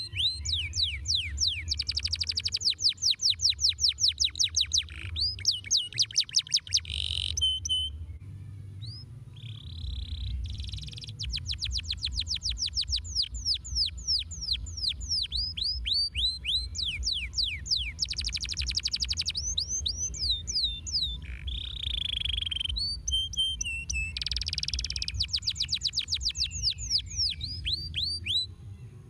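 Domestic canary singing: long, fast trills of repeated falling whistled notes in several phrases with short pauses between them, over a steady low rumble.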